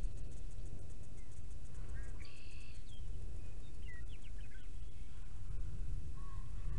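Steady low wind rumble on the microphone, with a bird giving a few short chirps and whistles from about two to four and a half seconds in.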